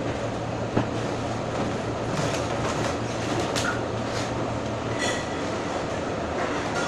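Steady rumbling room noise with a low hum that fades about five seconds in, and a light knock or two.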